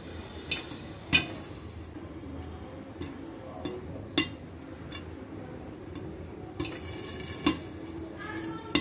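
Popcorn kernels starting to pop in hot oil in a pan covered with a glass lid: single sharp pops at uneven gaps, about one every second, over a faint sizzle of oil. This is the first stage of popping, with only a few kernels bursting so far.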